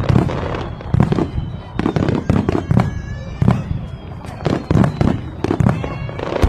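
Fireworks display: an irregular string of loud bangs, several a second, with whistling tones of shells sliding in pitch between them.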